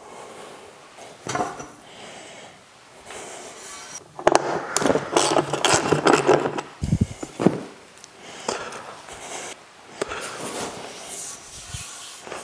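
Metal raft-frame bars being handled: scattered knocks, rubs and scrapes, busiest in the middle of the stretch, with a couple of dull thumps.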